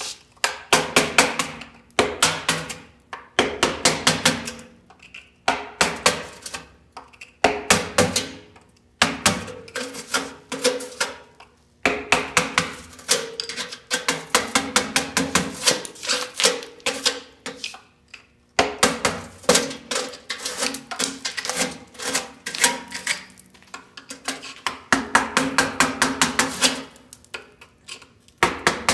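Hammer rapidly striking a chisel against the opening of a brick mailbox: quick metallic taps with a ringing tone, in runs of one to two seconds separated by brief pauses.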